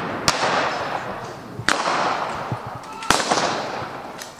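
Three gunshots from rifles firing blanks, about one and a half seconds apart, each a sharp crack followed by a long echo.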